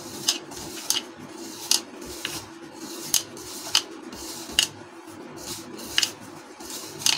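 A hand rubbing oil into refined flour in a bowl, each stroke giving a short dry scrape against the bowl, about ten of them, a little faster than one a second. A steady low hum runs underneath.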